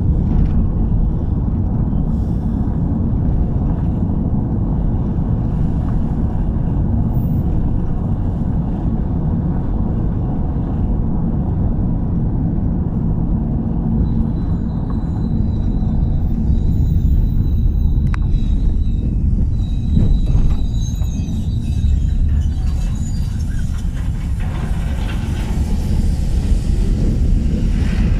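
Steady low rumble of a vehicle driving, heard from inside the cab: engine and tyre noise at an even speed.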